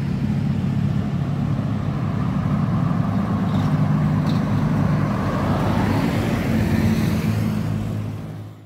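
Road traffic: cars and motorcycles passing with a steady low engine rumble. The sound fades out near the end.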